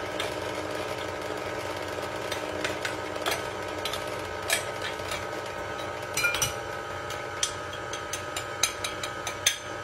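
Electric mixer motor running steadily, beating batter, with scattered sharp clicks and knocks.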